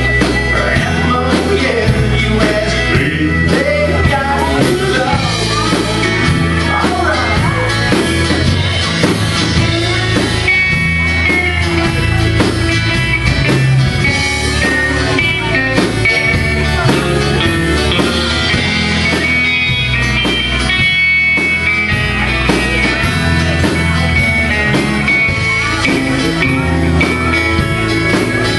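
Live country band playing: guitars, electric bass, drums and steel guitar, at a steady beat.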